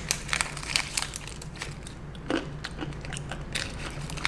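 Crunchy roasted almonds being bitten and chewed: a run of irregular sharp crunches.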